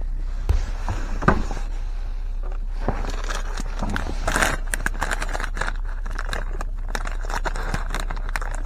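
Rustling of a jacket and crinkling of a plastic treat packet as dog treats are handled, with scattered clicks and knocks. A steady low hum runs underneath.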